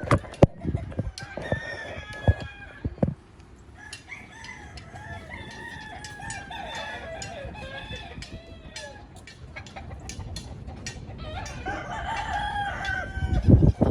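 Chickens clucking and a rooster crowing, many calls overlapping, with wind buffeting the microphone and a few sharp thumps in the first three seconds.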